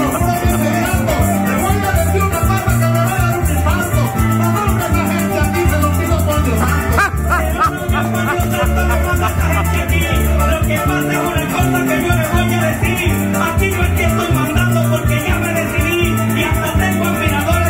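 Live Venezuelan llanero (joropo) band: arpa llanera, electric bass and maracas playing a fast, steady rhythm.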